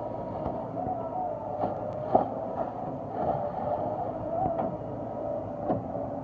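An engine running steadily with a wavering whine over it, broken by several sharp knocks, the loudest about two seconds in.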